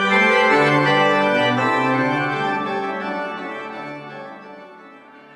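Church pipe organ playing sustained chords, with the bass notes changing in the first couple of seconds, then fading out toward the end.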